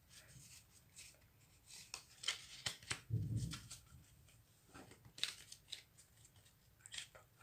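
Pokémon trading cards being handled and flicked through: scattered light clicks and snaps of card stock, with a soft low thump about three seconds in.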